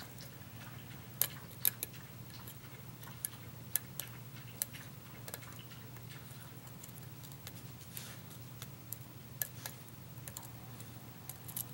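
Lock pick and tension wrench working the pins of a pin-tumbler challenge lock: light, irregular metallic clicks and scrapes as pins are lifted, set and dropped, over a steady low hum.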